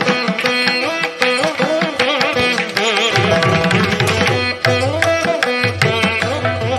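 Instrumental background music in a Carnatic classical style: a plucked string melody with sliding, bending notes over a steady percussion beat.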